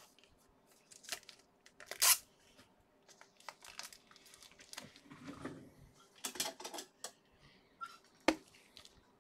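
Foil trading-card pack wrappers and cards being handled: intermittent crinkling and tearing, with a sharp snap about two seconds in and another near the end.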